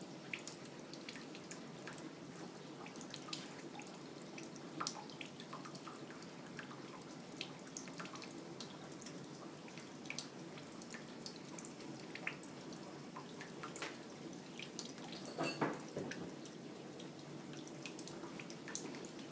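A thin stream of water trickling from a kitchen faucet into a stainless-steel sink, with scattered drips and light ticks. There is a brief louder sound about fifteen seconds in.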